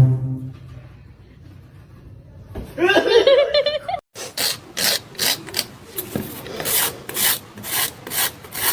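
A short wavering voice-like call. After a sudden cut comes a run of rhythmic scratching or rubbing strokes, about two a second.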